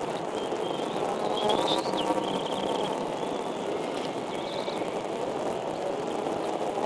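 Steady rushing outdoor background noise at a bald eagle nest, with a few faint, high bird chirps.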